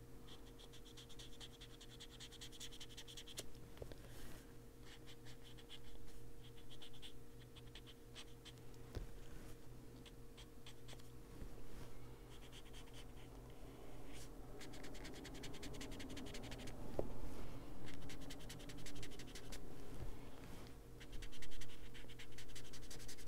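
Ranger detail ink-blending tool with a foam pad being rubbed over coloring-book paper to work in Distress Ink: a scratchy brushing in runs of short repeated strokes, louder toward the end.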